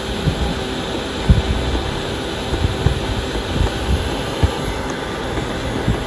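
ES250 robot vacuum cleaner running while held upside down: its suction motor and free-spinning side brushes make a steady hiss of air over a faint steady hum. A few low knocks come through, the loudest about a second in.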